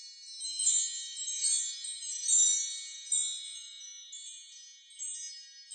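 Bright chimes ringing, many high, sustained bell-like tones overlapping in swells that fade somewhat in the second half.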